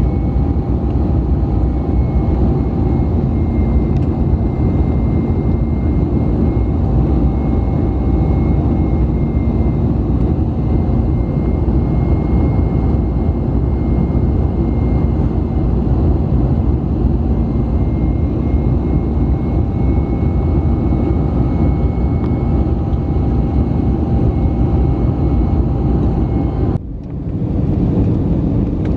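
Airbus A320 cabin noise heard from a window seat beside the engine: a steady loud roar with a few steady whining tones over it. It drops out briefly near the end and then resumes.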